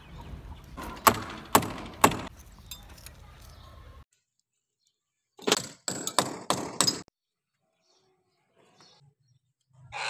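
Sharp metal clicks of a T-handle box spanner working the bolts of an air-conditioner outdoor-unit wall bracket: a few clicks in the first couple of seconds, then a quick run of about five more in the middle, with silent gaps between.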